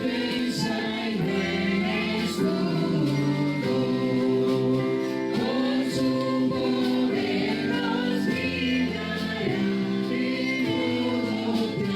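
A choir singing a hymn, the voices holding chords that change every second or so.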